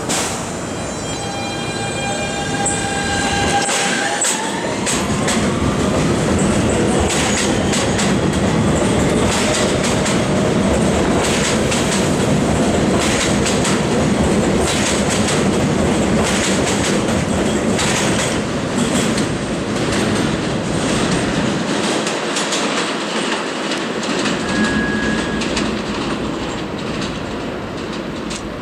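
New York City Subway Kawasaki R160B train pulling out of the station. The propulsion's steady whine rises in pitch as it starts to accelerate, then the cars rattle past with a rhythmic clickety-clack over the rail joints, fading as the train moves away. There is a brief high wheel squeal near the end.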